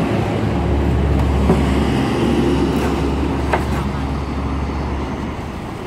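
A steady low rumble, with two short sharp knocks of a kitchen knife cutting into a durian's spiky husk on a wooden table.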